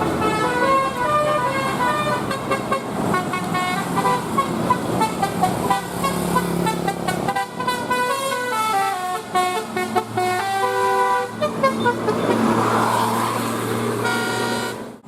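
A bus's multi-tone telolet horn playing a fast tune of stepping notes, with a low engine hum underneath.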